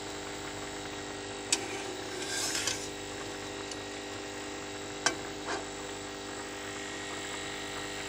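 Mango pieces in thick sugar syrup bubbling in a steel pot over a steady hum, with a steel spatula clinking against the pot twice, about one and a half and five seconds in.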